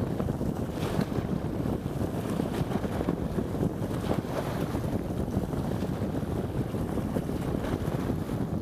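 Strong sea wind buffeting the microphone in a steady, gusting rumble, like a plane about to land.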